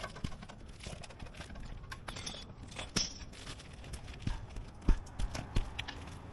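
Irregular knocks and taps at an uneven pace, with a loudest thump about five seconds in.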